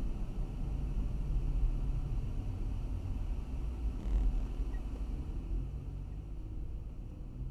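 Car driving on a city road, heard from inside the cabin: a steady low rumble of engine and road noise that grows quieter over the last couple of seconds.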